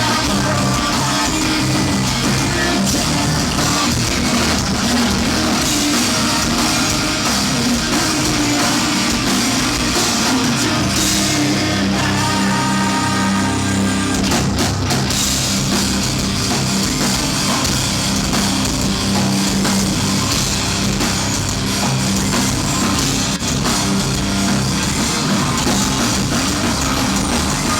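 Live rock band playing loudly with a drum kit and guitars, a full, even band sound.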